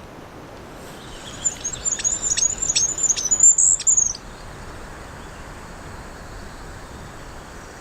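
Goldcrest song played back through a phone speaker to lure the birds in: a very high-pitched run of thin notes with quick downward flicks, lasting about three seconds and then stopping, over a faint steady hiss.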